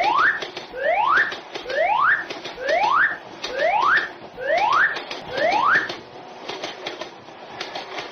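Electronic whooping alarm: a rising tone repeated about every 0.8 s, roughly eight times, that stops about six seconds in, over the rattling clatter of a train that keeps going after it.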